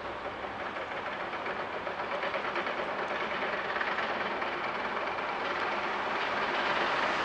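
Electric commuter train running past on an elevated track: a steady rumble of wheels on rail with faint clacks, growing steadily louder as it comes close.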